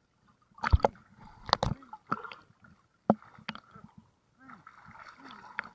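Choppy water slapping and gurgling against a camera at the waterline, with several sharp knocks as small waves hit it.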